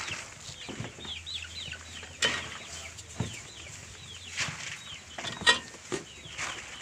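Chicks cheeping over and over in short rising-and-falling peeps, with a few sharp knocks from buckets being handled, the loudest about five and a half seconds in.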